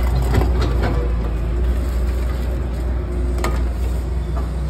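Steady low rumble with a few light clicks and knocks over it.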